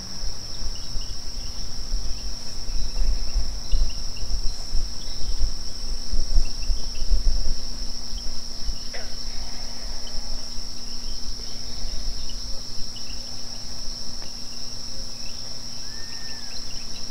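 Night insects, such as crickets, trilling in a steady, unbroken high chorus. An uneven low rumble runs beneath it, heaviest in the first half.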